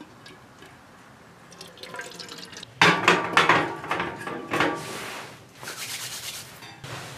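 Water pouring from a plastic water can into an aluminium kettle, then the kettle being handled and set down on a metal wood stove.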